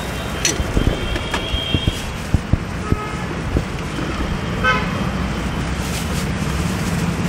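Street traffic: a steady low rumble of passing vehicles, with vehicle horns tooting about a second in and again near the middle. Scattered sharp clicks and taps, such as metal utensils, sound over it.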